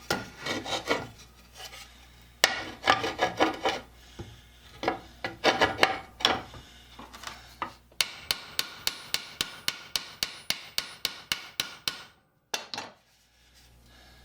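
Metal parts clattering and rubbing in three short bursts of sharp clicks. Then comes a run of about twenty quick, even metal taps, roughly five a second, that stops abruptly.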